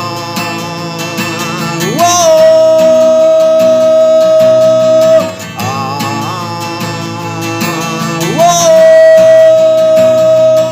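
Music: a guitar-backed song passage with no lyrics. Twice a lead line slides up into a long held note.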